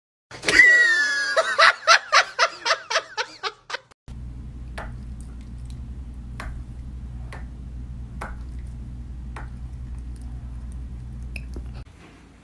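A horse whinnying: a loud high call that falls in pitch, then breaks into a shaking series of pulses, about four a second, that fade out over some three seconds. After it comes a low steady hum with faint clicks about once a second.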